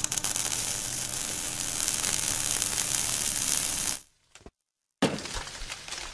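Sizzling, crackling sound effect, like burning sparks, for an animated logo. It cuts off about four seconds in, and after about a second of silence a sparser crackle starts again.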